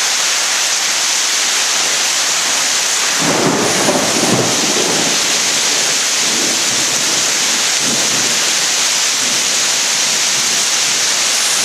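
Heavy rain pouring steadily in a severe thunderstorm, with a rumble of thunder about three seconds in that dies away in weaker rolls over several seconds.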